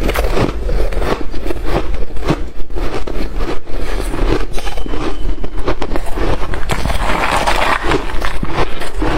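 Close-miked chewing of freezer frost and shaved ice: a dense, irregular run of loud crunches.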